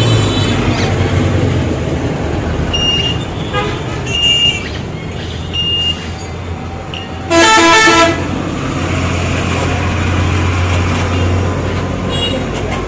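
Street traffic: a steady engine rumble with a few short, high horn toots, then one loud vehicle horn blast lasting just under a second about seven seconds in.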